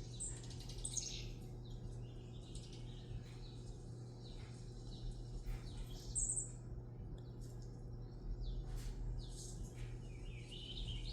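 Small songbirds chirping and calling in short, irregular bursts, played through a TV's speakers from a bird video for cats, over a low steady hum.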